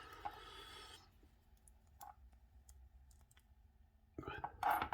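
Faint, scattered small metal clicks of a lockpick and tension wrench working in a brass padlock's keyway, with a louder burst of noise near the end.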